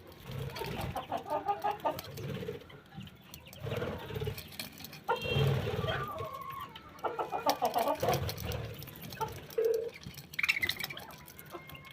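Chickens clucking in irregular runs of calls, with a few higher-pitched bird calls among them.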